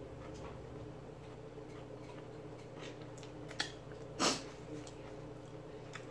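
Close-up eating sounds of a person eating with her fingers: faint mouth and finger noises, then a short, loud suck as she licks her fingers about four seconds in. A steady low hum runs underneath.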